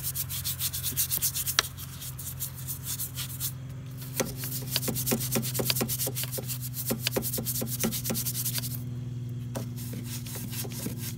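A scrub brush working degreaser into the ribbed valve cover of a Ford 4.6L Modular V8 in rapid back-and-forth strokes, pausing briefly about nine seconds in. A steady low hum runs underneath.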